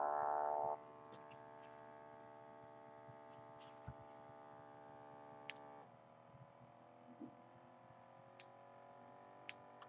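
The small electric air pump of an automatic blood pressure monitor inflating the arm cuff: a steady faint whine, louder for the first moment. Its tone shifts about six seconds in and then slowly rises in pitch, with a few faint clicks.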